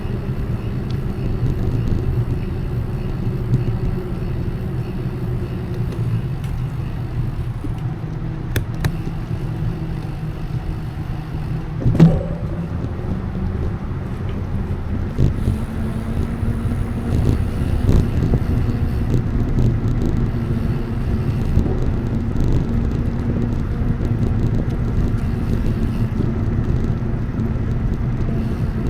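Steady low rumble of a vehicle while riding along, with one sharp click about twelve seconds in.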